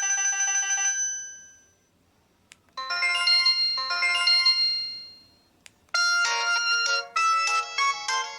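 LG U8120 mobile phone ringtones played one after another: a melody fading out in the first two seconds, a second short melody from about three seconds in, and a third starting about six seconds in. A single click sounds in each gap between them.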